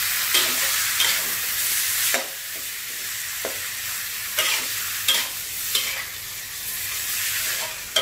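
Pork rib pieces sizzling in hot oil with pounded aromatics in a wok. A metal spatula scrapes and knocks against the pan roughly once a second as the meat is turned. The sizzle drops a little about two seconds in.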